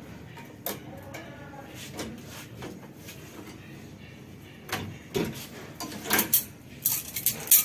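Bent 6 mm steel rebar rings clanking and clinking against the steel frame of a manual ring-bending machine as they are worked free and lifted out: a few light clicks at first, then a quick run of sharp metallic knocks in the second half, loudest near the end.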